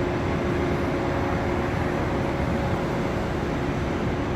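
Steady mechanical rumble of a running engine, with a constant hum held at an even level.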